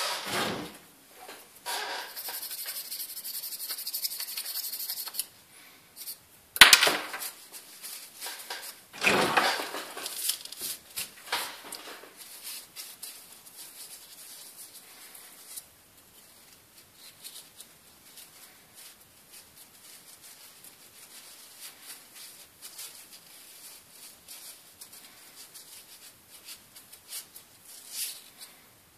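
Scraping and rubbing as old glue residue is cleaned off the small metal light-guide socket of a dental curing light, mostly faint and irregular, with a steady hiss for a few seconds early in the stretch and a sharp click about seven seconds in.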